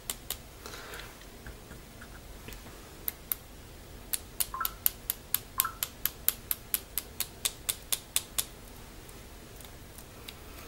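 A flat paintbrush loaded with paint tapped against a clear plastic stick to flick paint splatters, making sharp clicks. There are a few scattered taps, then a steady run of about four a second from about four to eight seconds in.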